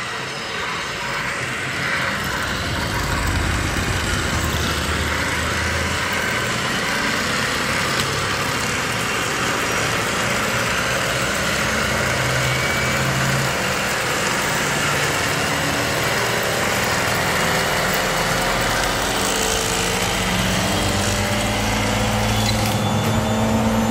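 Heavy truck engines running steadily, with pitch slowly rising in the last few seconds as they rev.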